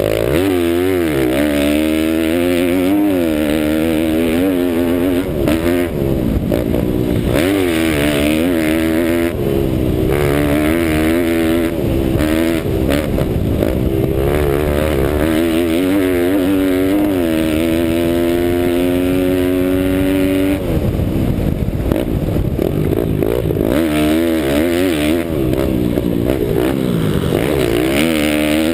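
Pit bike engine heard from the rider's helmet, revving up and dropping back again and again through the gears and corners. It is held at high revs for a few seconds before falling off sharply about two-thirds of the way in.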